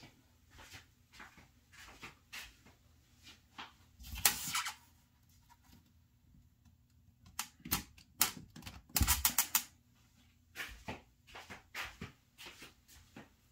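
Scattered clicks and plastic handling noises as a mains power plug is handled and pushed into an outlet to power up a DC power supply, with a quick run of clicks about nine seconds in.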